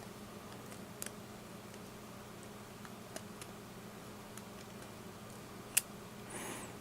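Faint, scattered small clicks and taps of a smartphone's internal parts and connectors being handled and unclipped during disassembly, with one sharper click near the end and a faint hum.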